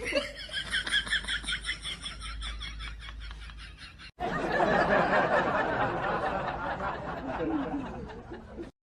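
Laughter: rapid high-pitched giggling for about four seconds. After an abrupt cut comes a denser, noisier stretch of laughing that cuts off suddenly near the end.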